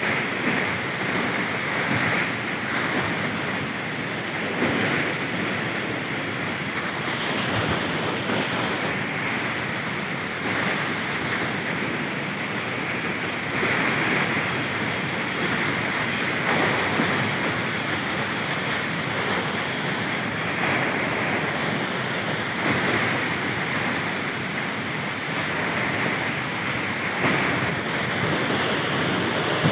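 Steady roar of rushing water from a waterfall, mixed with wind buffeting the microphone, swelling and easing slightly.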